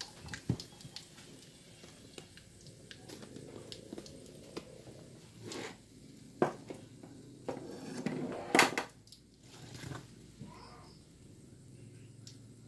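A pet's short calls, a few times, the loudest about eight and a half seconds in, among a few light knocks.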